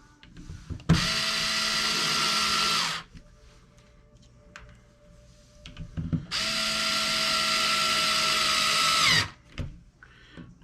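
Cordless power drill driving screws into the plastic chassis parts of an RC truck, the motor whining steadily in two runs of about two and three seconds.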